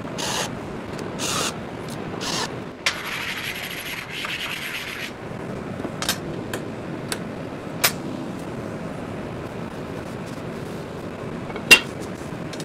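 Short bursts of a cordless drill with a countersink bit deburring drilled holes in a steel plate, then a steadier two-second rasp. After that come scattered metal clicks from clamps being handled and a rag rubbing across the plate, with one loud sharp clack near the end.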